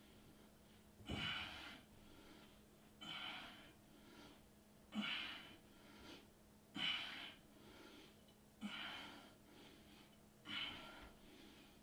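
A man's hard exhalations, six of them about two seconds apart, each starting sharply and trailing off. Each one comes with a rep of a superman back-extension exercise as he lifts his chest off the floor.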